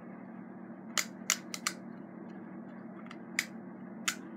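Sharp plastic clicks as a toy spinner top is fitted onto its launcher gun while being loaded: about seven clicks in small clusters, over a steady low hum.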